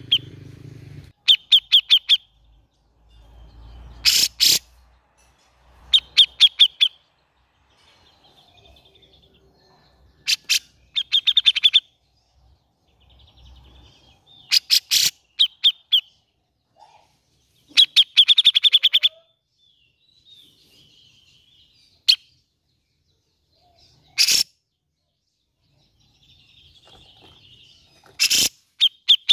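Cucak jenggot (grey-cheeked bulbul) calling: short, rapid chattering runs of notes about a second long, repeated every few seconds, with a few sharp single notes between.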